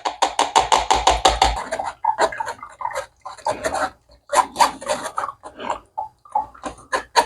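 Blended orange, lemon and ginger juice being worked through a kitchen strainer. A quick run of short strokes lasts about two seconds, then shorter bursts follow with pauses between them.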